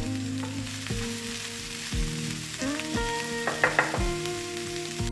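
Shredded white cabbage, diced potatoes and onion sizzling in hot oil in a frying pan while a wooden spatula stirs them, with two short sharp scrapes a little past halfway. Background guitar music runs alongside, a new note or chord about every second.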